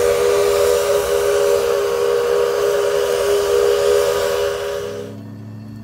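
Shay geared steam locomotive's whistle blowing one long, steady blast of several notes at once over a hiss, cut off about five seconds in.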